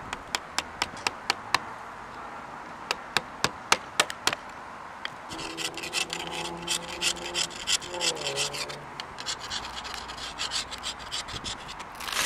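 Hammer knocking at hardened roof tar around a 2-inch rigid steel pipe, a quick run of sharp taps over the first four seconds. Then an old chisel scrapes the very hard tar off the pipe in quick, rasping strokes.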